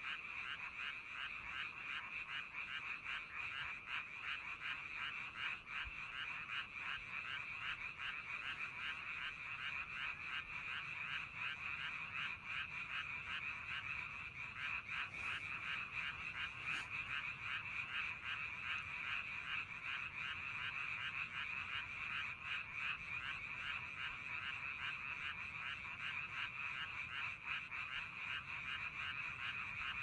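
A chorus of many frogs calling steadily at night, their fast croaking pulses overlapping into an unbroken din.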